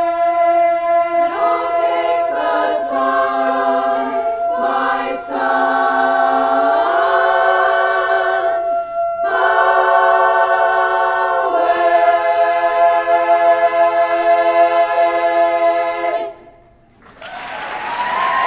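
Women's barbershop chorus singing a cappella in four-part harmony, closing on a long held chord that cuts off about sixteen seconds in. Applause breaks out about a second later.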